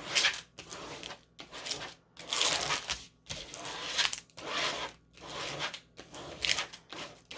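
Packaging rustling and crinkling as it is handled, in about ten bursts, roughly one a second.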